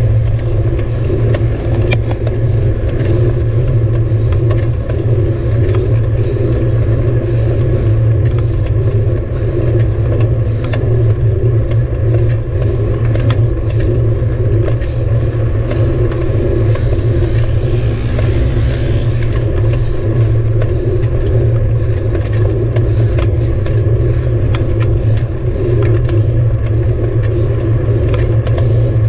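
Steady low rumble of wind and road noise on a handlebar-mounted camera as a road bicycle rolls along a paved path, with small rattling clicks scattered throughout.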